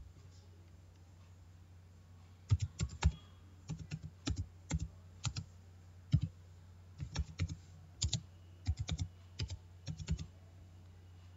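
Keys typed on a computer keyboard: irregular runs of key clicks, entering a command, from about two and a half seconds in until shortly before the end, over a steady low hum. A single click sounds right at the start.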